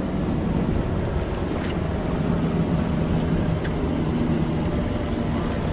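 A 115 hp outboard motor running steadily at trolling speed, a low even hum, with wind buffeting the microphone and water washing along the hull.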